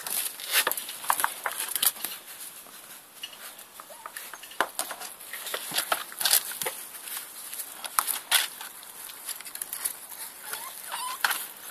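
Nine-week-old cocker spaniel puppies scrambling and play-fighting in long grass and plant pots: steady rustling and crackling of stems and leaves, with a few short high yips.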